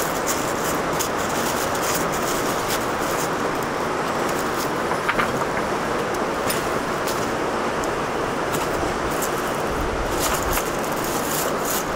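Steady rushing of a river running beside the boulder, with scattered short clicks over it.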